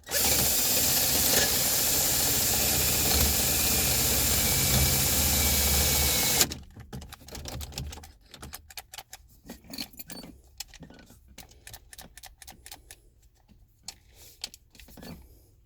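Power drill running steadily, drilling out a jammed ignition lock cylinder, for about six and a half seconds, then stopping abruptly. Light scattered clicks and rattles of metal handling follow.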